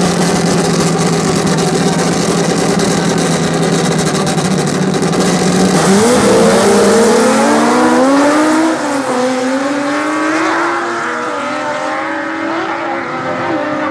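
Drag-racing cars' engines idling loudly on the start line, then launching about six seconds in. The engine pitch climbs, drops back and climbs again as the cars accelerate away down the quarter-mile strip, growing fainter.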